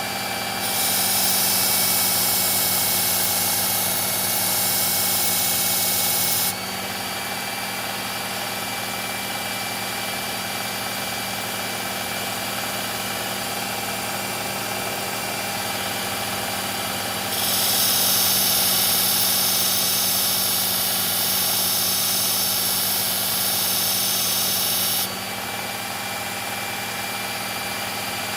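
Electric belt knife sharpener running steadily with a motor hum. A Gerber Propel Downrange blade is drawn across the abrasive belt twice, each time a grinding hiss of about six to eight seconds: once starting about a second in, and again from a little past halfway.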